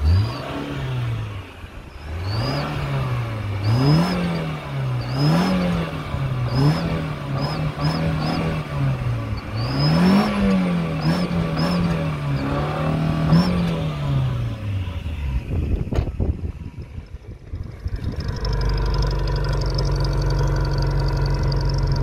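Small car engine revved repeatedly with the accelerator, about nine short rises and falls, through an exhaust with a clamp-on turbo whistle fitted in the tailpipe, then settling to a steady idle near the end. A short high tone sits at the top of most revs; the sound is essentially normal, with belt noise masking any whistle.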